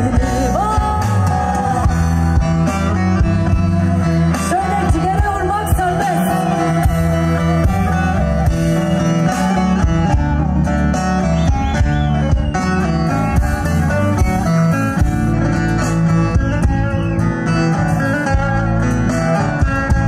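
Live band music with plucked string instruments over a steady beat, a wavering melody line standing out in the first several seconds.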